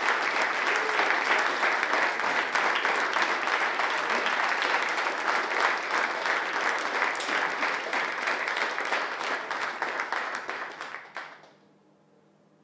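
A large audience applauding, many hands clapping together, which dies away to near silence about eleven seconds in.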